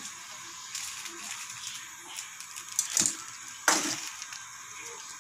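Two brief knocks or clinks of kitchen items being handled at the pot, about three seconds in and again just before four seconds, the second the louder, over a steady background hiss.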